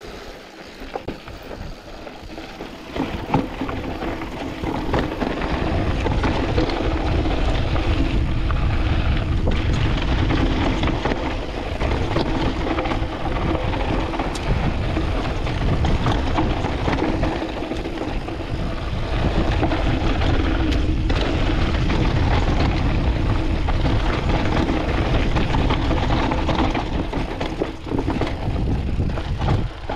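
Canyon Spectral AL 6.0 mountain bike ridden down a dusty dirt trail: tyres rolling on loose dirt and the bike rattling over bumps, with wind rushing over the chest-mounted camera's microphone. Quieter for the first few seconds, then steady once it picks up speed.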